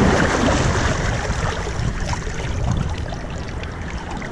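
Shallow seawater sloshing and splashing around a person's hands and legs as a snook is held in the water and let go, loudest in the first second and then easing off.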